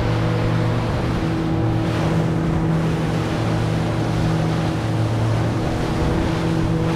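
Outboard motor of a 17-foot open boat running at a steady cruising speed, a steady low hum, with water rushing and splashing against the hull in a choppy sea.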